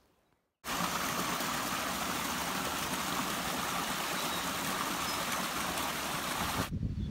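Steady rush of a flowing stream, cut in abruptly about half a second in and cut off just before the end.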